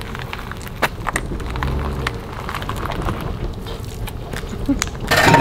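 Low outdoor rumble with scattered light clicks. About five seconds in it cuts suddenly to the small outboard motor of a micro speed boat running loud, its pitch dipping and then rising.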